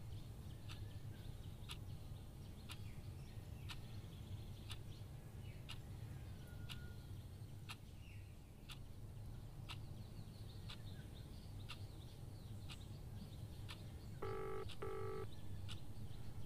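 Soft ticking about once a second over a low steady hum, with a few faint high chirps. Near the end come two short electronic beeps.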